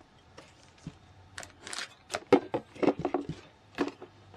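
Handling noise from unboxed accessories: a stainless-steel travel mug and a zippered accessory case being moved about and set down on a plastic tray. It comes as a string of short, irregular knocks and rustles.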